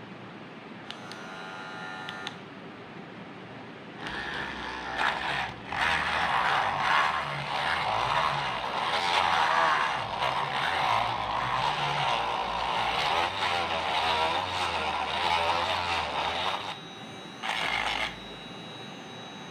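Homemade mini drill's small electric motor running, loud and rough and wavering in pitch for about thirteen seconds, then cutting off, with one short burst just after.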